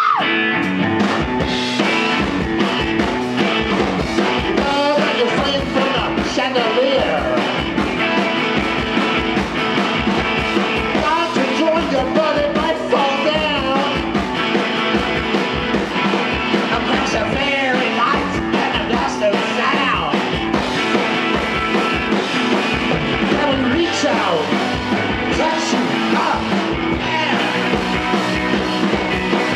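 Live rock band playing a song loud and steady, with a driving drum beat under the guitars.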